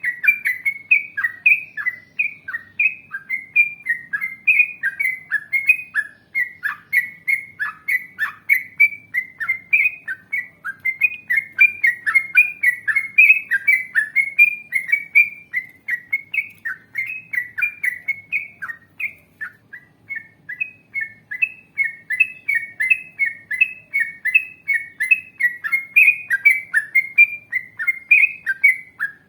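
Yellow-vented bulbul (trucukan) singing a long, fast run of short chirped notes, about three to four a second, with a brief pause about two-thirds of the way through.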